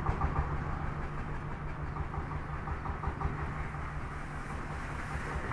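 Bulldozer's diesel engine running with a steady low rumble.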